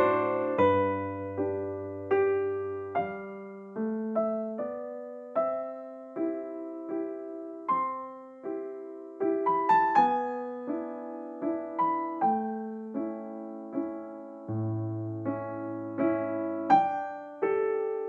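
Slow, gentle background piano music: single struck notes and chords, each ringing and fading, a few to the second, with low bass notes under some of them.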